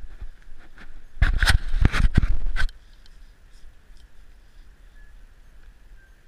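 A burst of rumbling, crackling rustle on the body-worn action camera's microphone, lasting about a second and a half from about a second in, then a low steady hiss.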